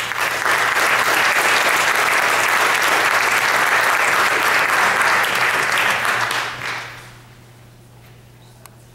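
Audience applauding, starting abruptly and fading out about seven seconds in.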